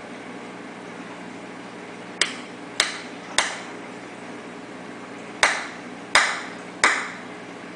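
Peacock mantis shrimp striking a clam shell with its club-like raptorial appendages: six sharp cracks in two sets of three, each set about two-thirds of a second apart, every crack with a short ringing tail.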